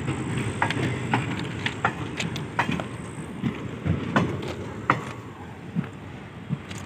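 Goods train wagons rolling past on the track: a low rumble with sharp, irregular clicks and clanks from the wheels and couplings, getting quieter as the last wagons and the brake van at the tail go by.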